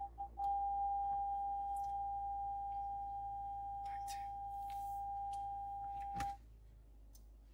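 Vauxhall Grandland X rear parking-sensor warning: quick beeps that merge into one continuous tone about half a second in, the signal that the car is very close to an obstacle behind it. The tone cuts off with a short click near the end.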